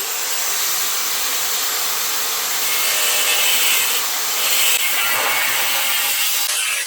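Angle grinder with a cutting disc slicing through a steel chassis rail: a steady, loud abrasive hiss whose tone shifts a few times as the disc works along the cut.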